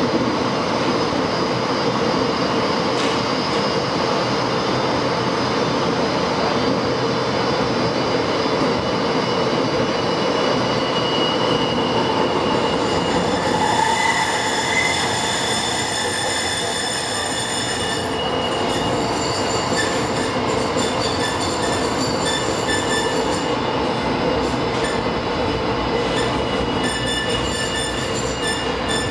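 A tram running through a concrete tunnel, heard from inside: a steady rolling rumble of steel wheels on the rails. About halfway through, high whining tones come in over it and flicker on and off toward the end as the track begins to curve.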